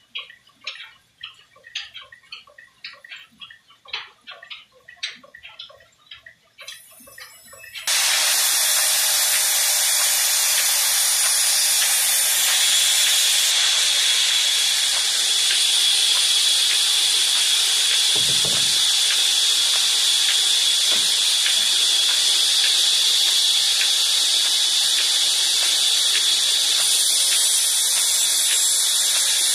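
Faint irregular knocking, then about eight seconds in a belt-driven band saw cutting a wooden beam: a loud, steady, high hiss that holds.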